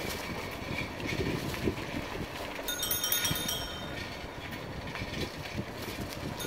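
Steady rumble and rattle of a bicycle ride along a rough lane, heard from the rider's own bicycle as it rolls.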